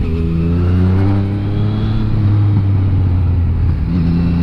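Yamaha MT-09's three-cylinder engine accelerating hard, its note rising steadily for nearly four seconds. Near the end it drops with an upshift and starts climbing again. A steady low rumble of wind on the bike-mounted microphone runs underneath.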